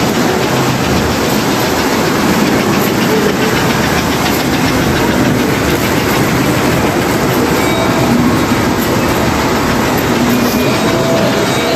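Three-rail toy trains running on the layout: a steady rumble and rapid clatter of metal wheels over the track joints.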